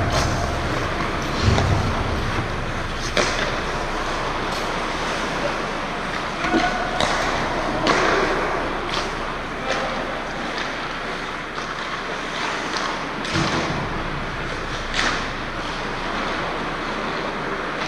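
Pickup ice hockey play: a steady scrape and hiss of skates on the ice, with sharp clacks of sticks and puck every few seconds and now and then a short shout from a player.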